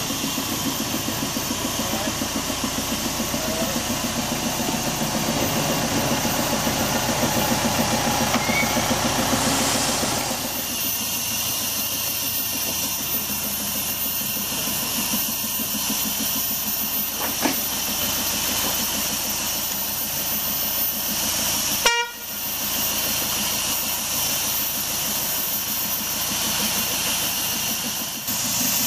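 Engine of a small narrow-gauge diesel-hydraulic locomotive running with a steady throb. About ten seconds in, this gives way to a steady hiss, with one sharp click about twenty-two seconds in.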